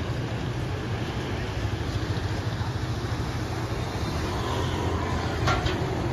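A heavy engine running steadily as a low rumble. A short higher sound cuts in near the end.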